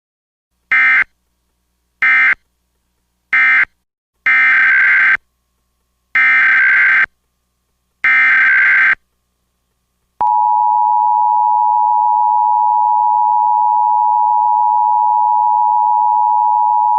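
Emergency Alert System SAME data bursts. First come three short buzzy bursts about a second apart, the end-of-message code closing one severe thunderstorm warning. Then come three longer bursts, the coded header of the next warning. About ten seconds in, a steady single alarm tone of about 1 kHz starts: the NOAA Weather Radio warning alarm tone.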